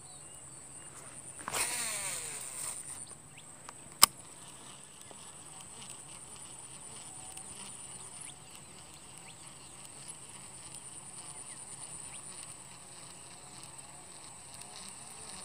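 Steady high-pitched insect drone from the surrounding grass and forest. About a second and a half in, a baitcasting reel gives a brief whirring burst that falls in pitch, and a single sharp click follows about four seconds in.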